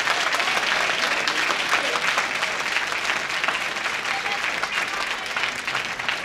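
Audience applauding, a steady dense clatter of many hands clapping with a few voices mixed in, easing slightly near the end.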